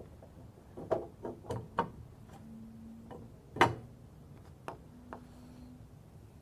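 Electronic entry door lock being switched on and handled: a series of clicks and clacks, the loudest about three and a half seconds in, with two short, low, steady hums, one in the middle and one near the end.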